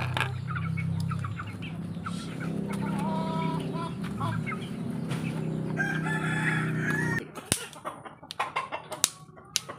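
Domestic chickens clucking, with a rooster crowing about six seconds in, over a steady low hum that cuts off suddenly about seven seconds in. A few sharp clicks follow near the end.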